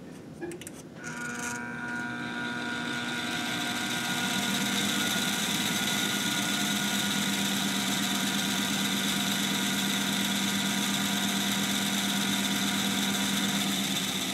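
Crankshaft balancing machine spinning a 454 big-block Chevy crankshaft fitted with bob weights. The drive starts about a second in, spins up over a few seconds, then runs at a steady speed with an even hum of several tones. It is a measurement spin to read how much imbalance remains after weight was drilled from the counterweights.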